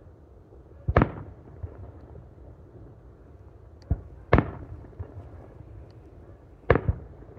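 Aerial fireworks going off: three loud booms about three seconds apart, each with a smaller bang just before it and a short echoing tail. The middle boom is the loudest.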